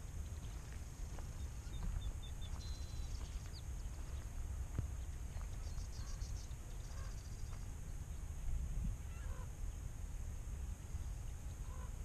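Low, steady wind rumble on the microphone, with scattered distant bird calls over it: short high chips and trills, and a few fainter, lower calls of waterfowl.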